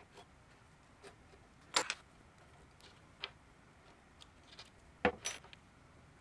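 Scattered light clicks and metallic taps as a small blade and a metal hinge leaf are set and worked against the walnut cabinet side while marking out a hinge mortise. The two loudest clicks come about two seconds in and again about five seconds in.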